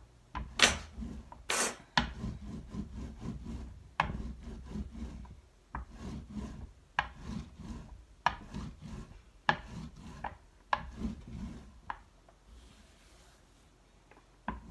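Rolling pin rolled back and forth over a lace placemat pressed onto a slab of clay, giving a low rub with each stroke, about three a second, with scattered sharp clicks and swishes, the loudest twice in the first two seconds. The rolling dies down near the end.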